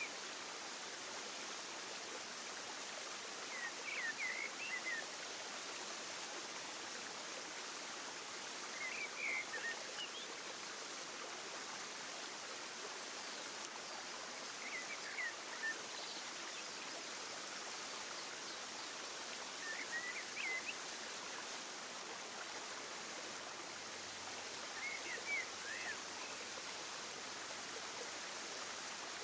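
Steady rushing of a stream, with short high bird chirps about every five seconds.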